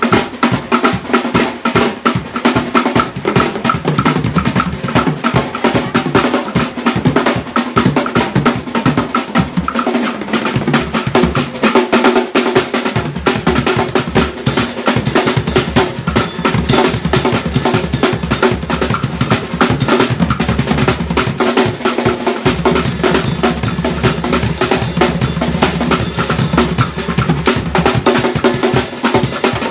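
An acoustic drum kit played fast and hard: rapid snare rolls and fills with bass drum, toms and crashing cymbals, the strokes coming densely without a break.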